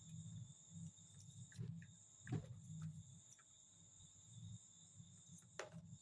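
Near silence: a faint steady high-pitched whine over a low pulsing hum, with a couple of soft clicks.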